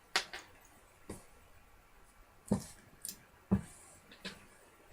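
A leather bridle being handled and straightened, its metal buckles and fittings giving about six short clicks and knocks at irregular intervals.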